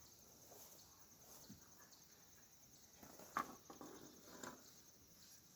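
Near silence: a faint high pulsing trill, with a couple of soft knocks or rustles about three and a half and four and a half seconds in.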